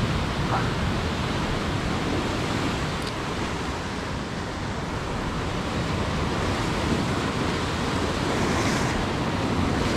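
Ocean surf washing and breaking against a rock ledge: a steady rush of whitewater, with some wind on the microphone.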